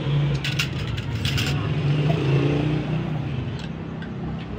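Steady low hum with a few sharp clinks of cutlery on plates, clustered from about half a second to a second and a half in, and one more near the end.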